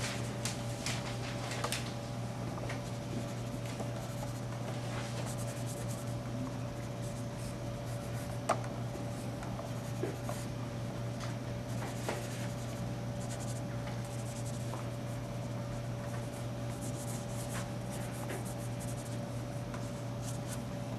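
Graphite pencil scratching across paper as lines are drawn, in a run of short and long strokes, over a steady low hum. A single sharp tap about eight and a half seconds in.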